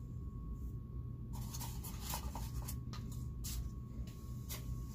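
Styrofoam packing peanuts being handled and dropped into a glass beaker of acetone: a scattered series of short, scratchy squeaks and clicks starting about a second in. Under them runs the steady low hum of the fume hood's fan.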